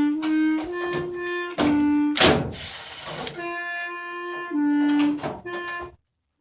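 Background music: a melody of held notes changing pitch every second or so, punctuated by sharp hits, cutting out abruptly just before the end.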